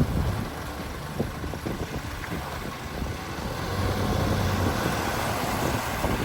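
Off-road vehicle driving along a rough trail: a steady low engine and road rumble that grows louder about four seconds in, with a few short knocks from the bumpy track.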